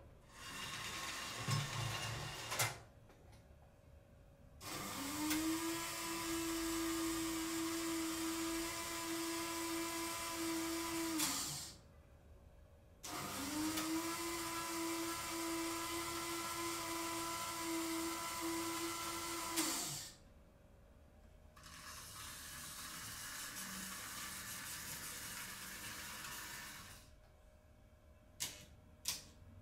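Märklin model railway turntable's electric drive motor running twice for about seven seconds each time: a steady whine that rises in pitch as it starts and stops with a click. Shorter, softer running sounds from the model train come before and after, and there are a couple of clicks near the end.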